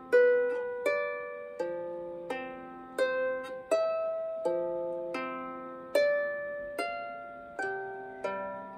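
Lever harp played by hand in a slow, gentle melody: plucked notes come about one every three-quarters of a second, each ringing on and fading, with lower notes sounding beneath some of them.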